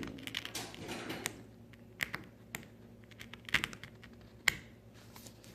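Irregular sharp clicks and taps of a small metal tool poking and cracking at the shattered glass cover of a Galaxy S7's rear camera lens, punching a hole through it. A handful of the clicks are louder.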